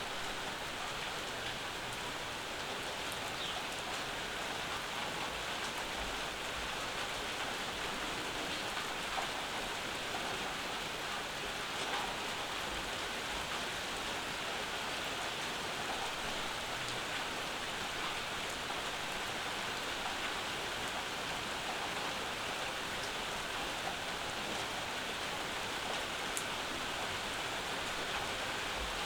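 Steady summer rainfall with scattered drop ticks.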